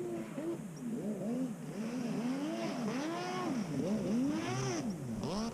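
Distant two-stroke 1100cc jet ski engine in a Kawasaki 650SX hull, heard from far across the bay, its pitch rising and falling over and over as the rider throttles up and down.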